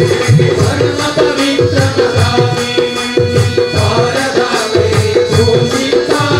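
Live Indian devotional bhajan music: a harmonium playing a repeating melodic figure over a hand-played barrel drum and rattling hand percussion, all keeping a steady beat.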